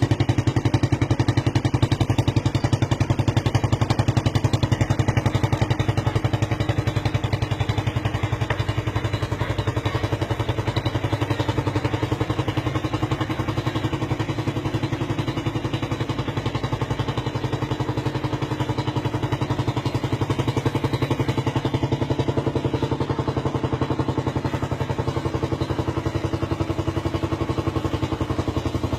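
Suzuki Raider 150 motorcycle's single-cylinder engine running steadily in place through its exhaust, a rapid, even train of sharp firing pulses that sounds like machine-gun fire.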